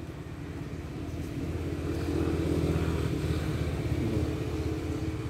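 A passing motor vehicle's engine: a low, steady hum that grows louder to a peak about two seconds in, holds, then eases slightly toward the end.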